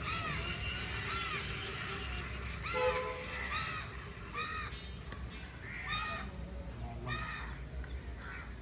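Crows cawing, a series of short harsh caws roughly one a second.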